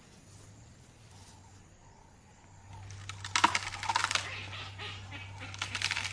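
African elephant moving through long grass and twigs, with crackling, rustling and snapping from about three seconds in over a low steady hum.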